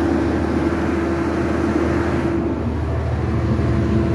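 Mobile crane's diesel engine running steadily while the crane is driven onto a trailer, heard from the cab, with a steady higher hum that stops about two and a half seconds in.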